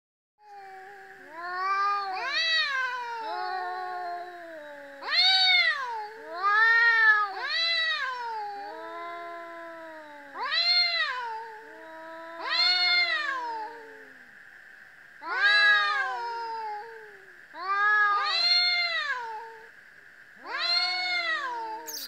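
Cats yowling at night in a long back-and-forth exchange of about a dozen drawn-out calls, each rising then falling, some overlapping at different pitches. It is the courtship caterwauling of cats calling to each other. A steady faint high drone runs underneath.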